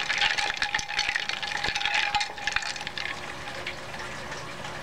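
Spoon stirring lye into icy water in a glass Pyrex measuring cup: a busy scraping and clicking against the glass, busiest in the first two seconds, then quieter. The sodium hydroxide is dissolving in cold, partly frozen water.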